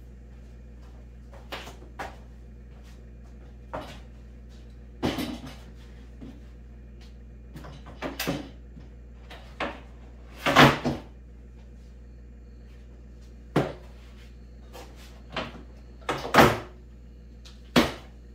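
Wooden panels and parts being lifted, knocked and set down on a wooden CNC table: about a dozen scattered thumps and clunks, the loudest about ten seconds in and again near the end, over a steady low hum.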